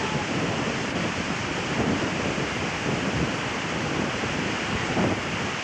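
Wind buffeting a camcorder microphone outdoors: a steady rushing noise with irregular low rumbling gusts.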